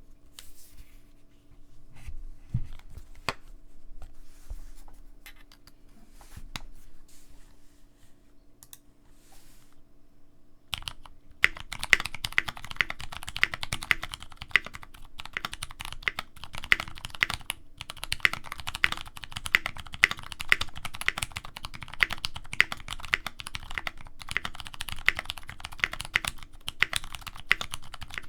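Typing on a Tofu65 mechanical keyboard with lubed 62g Cherry Clear tactile switches, a brass plate and GMK keycaps. A few scattered clicks for the first ten seconds or so, then fast, steady typing from about eleven seconds in.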